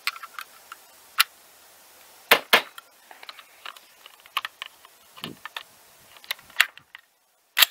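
Irregular sharp clicks and clacks from hands working an AR-style rifle at a shooting bench, with two louder clacks close together about two and a half seconds in. The sound cuts to dead silence near the end, then one last sharp click.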